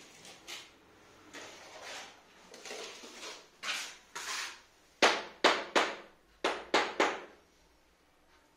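Large vitrified floor tile being set into a bed of tile adhesive: a few soft knocks and scrapes as it is placed, then about six sharp taps in quick succession about halfway through, bedding the tile down.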